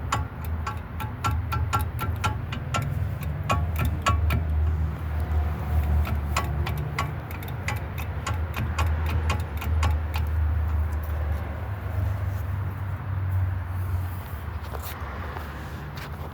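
Quick metallic clicking and knocking, about three a second for the first few seconds and then a few scattered knocks: the play in a 2003 GMC Envoy's worn front steering and suspension as the hub is rocked by hand, a loose outer tie rod end and a lower control arm that is gone. A steady low rumble runs underneath.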